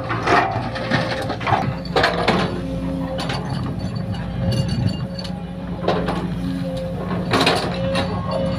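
Sumitomo excavator's diesel engine running steadily, with short metallic clanks and scrapes several times.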